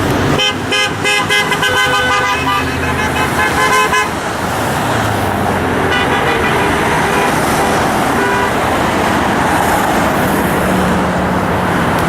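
Car horns honking: a quick string of short toots over steady freeway traffic, followed a few seconds later by a fainter horn blast. The honks are drivers answering a roadside honk-for-support protest sign.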